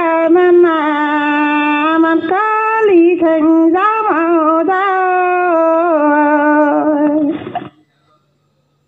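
A woman singing unaccompanied in a Dao Pả dung antiphonal folk song, holding long, wavering, drawn-out notes. Her phrase ends shortly before the end.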